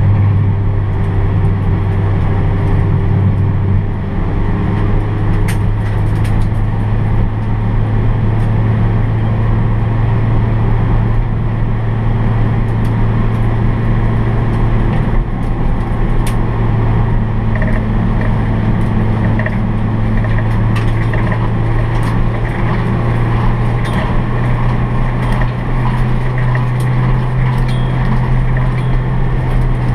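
In-cabin sound of a Honda Brio race car's 1.2-litre L12B i-VTEC four-cylinder engine with a racing exhaust, running at a nearly steady pitch that rises slightly near the end, over tyre and road noise.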